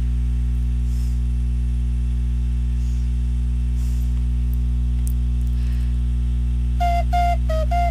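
A steady low electrical mains hum fills a pause in the ocarina tune. Near the end the ocarina comes back in with a few short, quick notes.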